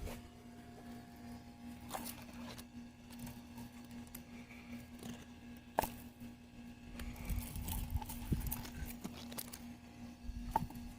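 Faint scattered clicks and rustles of hands working through cherry tomato plants, picking fruit, over a steady low hum.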